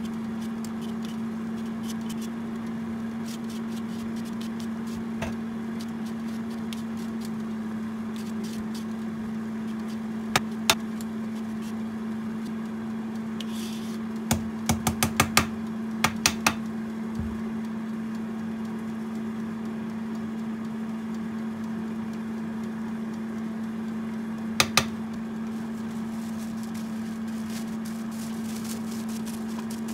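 Vegetable peeler shaving strips off a vegetable into a pan, heard as a few sharp clicks and taps: two about a third of the way in, a quick run of them around the middle, and two more near the end. A steady low hum lies under it throughout.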